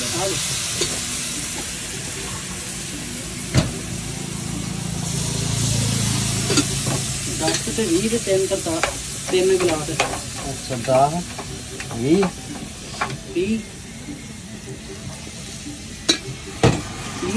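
Maggi noodles sizzling in a hot pan as they are stirred, with a couple of sharp clanks of the spatula against the pan, one about three and a half seconds in and two near the end.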